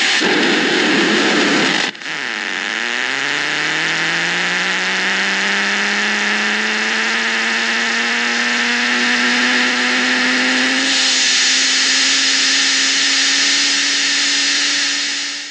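Harsh electronic noise from Trogotronic 669 and 676 noise units. A dense hiss-like wash carries a droning tone that glides slowly upward after a brief dropout about two seconds in. The hiss brightens about two-thirds of the way through, then everything cuts off abruptly.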